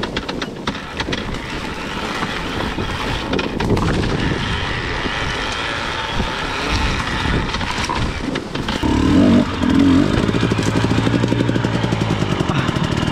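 Dirt bike engine running at low revs while the bike descends a steep trail, then settling into a steady idle about ten seconds in.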